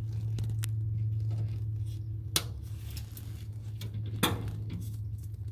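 Snips cutting off the excess of nylon radiator-fan mounting pins: two sharp snaps a couple of seconds apart, over a steady low hum.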